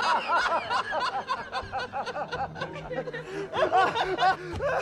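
A man laughing heartily in quick repeated ha-ha pulses, easing off through the middle and breaking into a fresh burst near the end.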